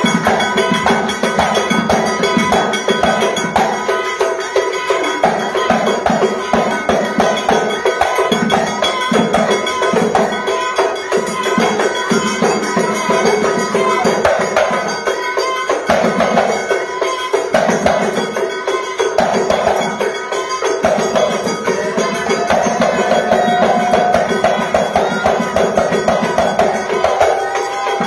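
Moroccan Houara folk percussion: a fast, steady rhythm of hand-clapping and small hand-held metal percussion over a hand drum, played by a troupe.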